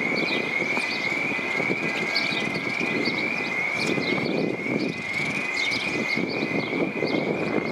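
Steady street traffic noise with a high, thin electronic chirp that rises in pitch and repeats about twice a second.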